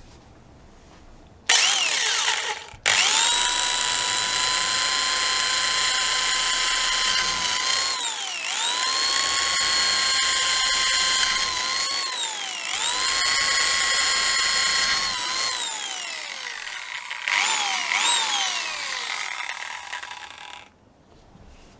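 1972 Wolf Sapphire electric drill, its gears worn, whining at full speed as it bores into a wooden block. After a short burst it runs steadily, spins down and picks up again three times, then gives a few short blips that wind down before it stops near the end.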